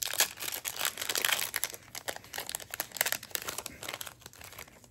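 Trading-card booster pack wrapper crinkling as it is torn open and handled: a dense run of crackles that thins out toward the end.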